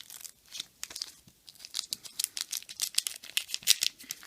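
Paper trading-card pack being torn open and its wrapper crinkled: quick, crisp crackles, coming thicker in the second half.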